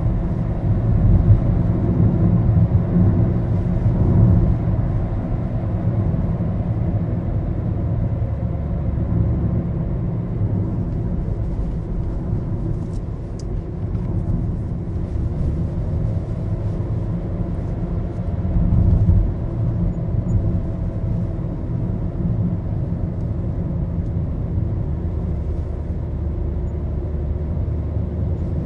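Steady engine and road rumble inside the cabin of a Maruti Suzuki Baleno hatchback on the move, swelling briefly about two-thirds of the way through.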